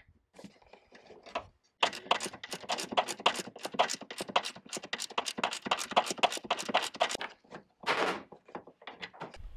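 Quarter-inch drive ratchet with a Torx bit clicking in a quick, even run, several clicks a second, as it backs out a door screw. A short, louder rasp comes near the end.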